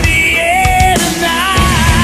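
Heavy rock music: an instrumental passage with a sustained, bending lead guitar line over distorted rhythm guitar, bass and drums.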